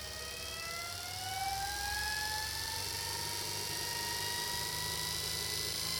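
Separately excited (SepEx) starter-generator DC motor spinning up on a motor controller's slow ramp. Its whine rises in pitch over the first couple of seconds, then keeps climbing slowly as the motor gains speed.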